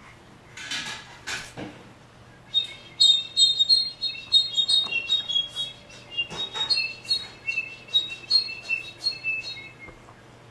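Pet bird chirping and whistling in a rapid run of short high notes for about seven seconds, after two short harsh sounds near the start.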